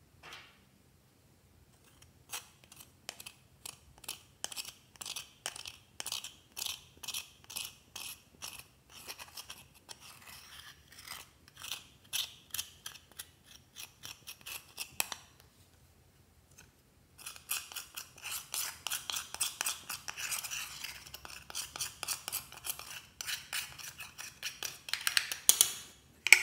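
Pressed eyeshadow being scraped and crushed in its metal pan with a thin metal tool, in quick repeated scraping strokes of about three a second. The strokes pause for about two seconds midway, then come faster and denser, loudest near the end.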